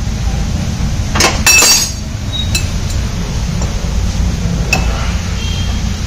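A metal spanner clinks against the front steering linkage under the car during a wheel alignment: a few sharp clinks about a second in, the loudest just after, then lighter ticks. A steady low hum runs underneath.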